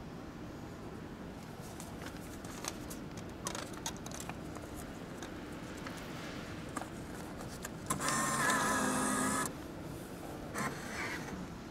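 Vending machine bill acceptor motor whirring for about a second and a half as it draws in and checks a 1000-yen note. Light clicks of the note being handled come before it, and a couple of clicks follow.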